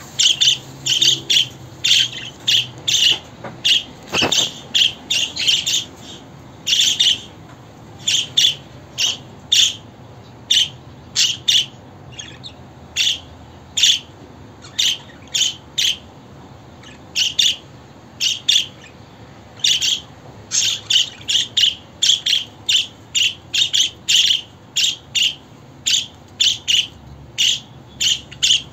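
Budgerigar giving short, sharp, high chirps in quick runs of about two a second, with brief pauses between runs.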